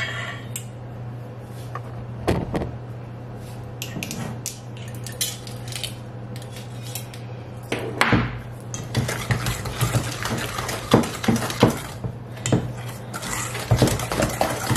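Wire whisk beating a thick sugar, butter and egg mixture in a stainless steel mixing bowl, the wires clicking and scraping against the metal. The strokes are scattered at first and turn into fast, steady clinking from about eight seconds in, over a steady low hum.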